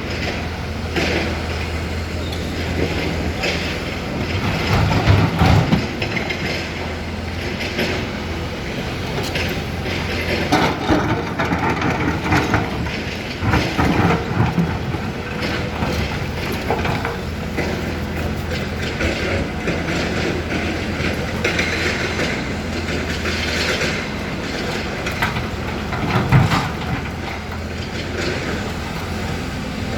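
Hyundai HX 220L crawler excavator working: its diesel engine runs with a steady low hum under frequent metallic clanks and rattles, with louder bursts of clatter now and then.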